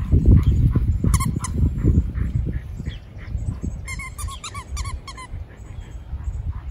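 Australian Shepherd whining in short, high, bending whimpers, about a second in and again in a quick cluster near the middle, the sound of a dog frustrated as it waits for the flirt-pole toy to move again. A low rumbling noise is loudest over the first two seconds.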